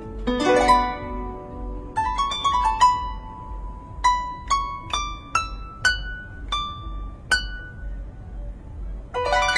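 Paraguayan harp playing plucked notes that ring and fade: chords and quick figures at first, then a slow run of about seven single high notes, roughly two a second, and a quick flurry of notes near the end.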